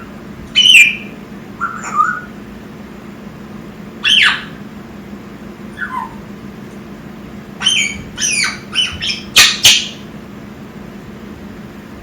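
Young African grey parrot squawking and chirping in short separate calls, several sweeping down in pitch, then a quick run of calls near the end.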